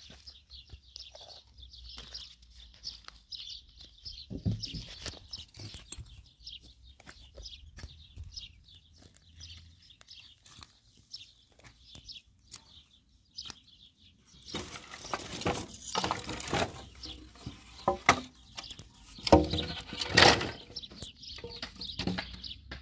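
Small birds chirping in quick, short notes. About two-thirds of the way in, loud clattering and knocking of wooden poles and beams knocking together as they are lifted and moved.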